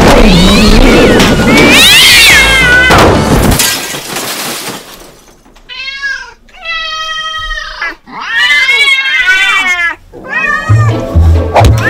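Loud music for about the first three seconds, then three cat meows, the middle one long and held steady. The meows are sound effects laid over plush toy cats.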